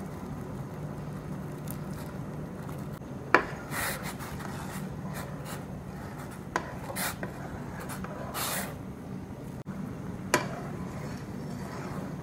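A spoon stirring sago pearls in a stainless steel pot of boiling water: three sharp clinks of the spoon against the pot and short scraping strokes along it, over a steady low background noise.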